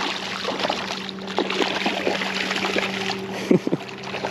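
Water splashing and sloshing in the shallows as a hooked fish is brought in, with scattered short splashes and a couple of louder ones about three and a half seconds in. A steady low hum runs underneath.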